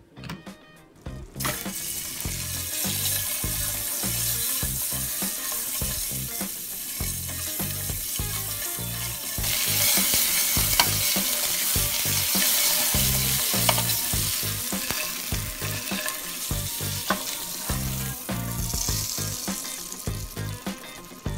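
Peeled hard-boiled eggs sizzling as they fry in hot oil in a pan, the sizzle starting a second or two in and growing louder about halfway, with a few light clicks as they are stirred. A music bass line runs underneath.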